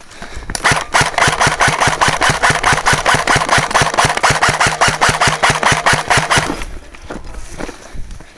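Airsoft electric gun firing one long full-auto burst of about six seconds, a rapid even rattle of shots over a steady motor whine. It cuts off sharply.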